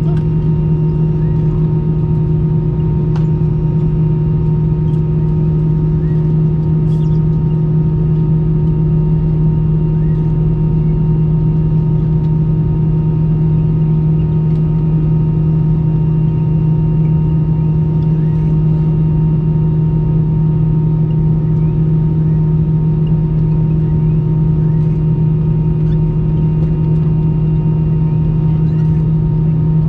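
Steady cabin drone inside an Airbus A319-100 on the ground after landing: a strong low hum with several fixed higher tones that stays unchanged throughout.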